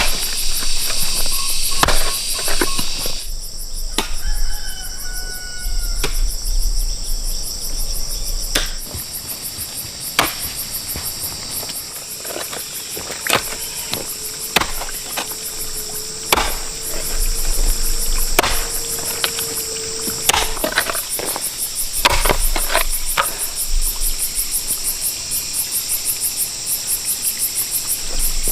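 Insects chirping steadily, with scattered sharp knocks and taps from manual work.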